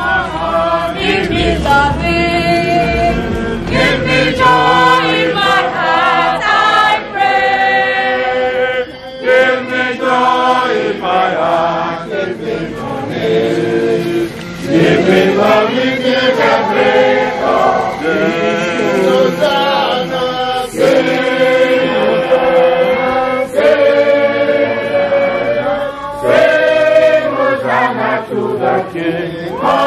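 Choir of many voices singing a hymn together, holding long notes, with short breaks between phrases.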